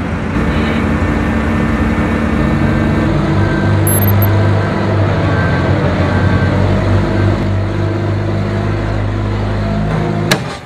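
Engine of a site dumper running steadily, its note shifting a few times, then cutting off abruptly near the end.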